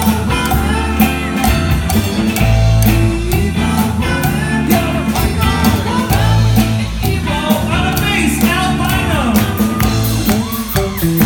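Rock song playing loud, with singing over guitar and a steady drum beat.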